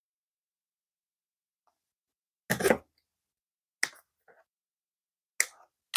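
Silence, then from about two and a half seconds in, four short, sharp clicks and rustles of hands handling a sewn upholstery cover on a sewing machine table. The first is the loudest.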